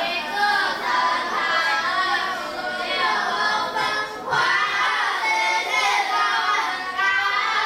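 A class of schoolchildren reading aloud together in unison, a continuous sing-song chorus of young voices with a brief pause about four seconds in.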